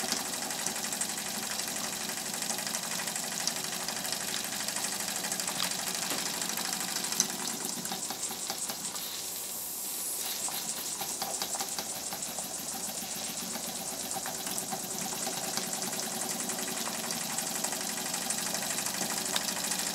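Small homemade live-steam engine running fast on about 9 pounds of boiler pressure, its exhaust hissing in a rapid, even beat with a light mechanical clatter. The engine eases briefly about halfway through, then picks up again.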